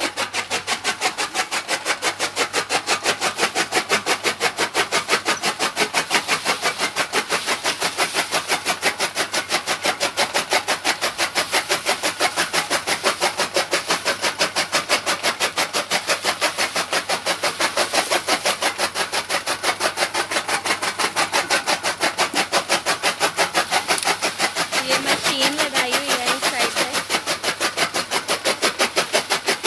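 Electric-motor-driven chaff cutter chopping green fodder stalks as they are fed in, a fast, even clatter of blade strokes that never stops.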